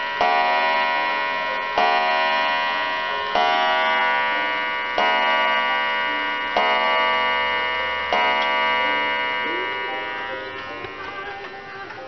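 Waterbury 'Huntley' parlor clock's spring-driven brass movement striking the hour on its original wire gong: six strokes about a second and a half apart, each ringing on with a bright, many-toned shimmer that fades slowly after the last one.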